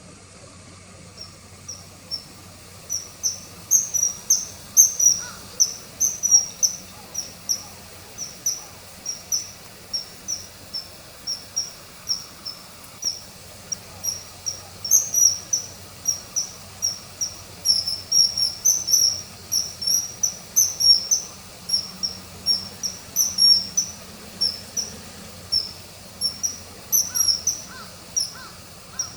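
Common kingfisher calling: a long series of short, sharp, high-pitched notes, about two or three a second, in irregular runs.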